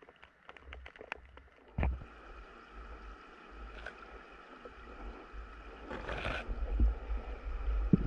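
Spearfisher duck-diving: a splash about two seconds in as the head goes under, then the muffled underwater rumble of the water at the microphone. A short rush of water noise comes about six seconds in.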